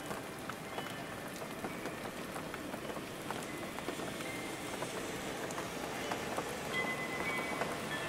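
Steady rain sound for sleep, an even hiss with scattered drop ticks. Near the end, a few steady chime tones begin to ring over it.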